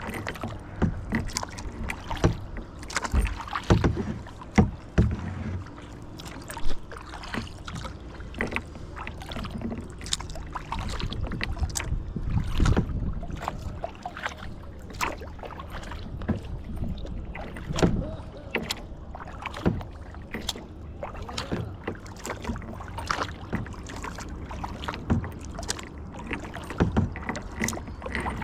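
Kayak being paddled: paddle strokes splashing and dripping in the water, with many irregular sharp splashes and knocks over a steady wash of water.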